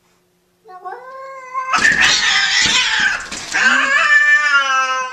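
Domestic cats in a standoff caterwauling. A rising yowl starts about half a second in and breaks into a loud, harsh screech for nearly two seconds. A second long, wavering yowl follows and fades near the end.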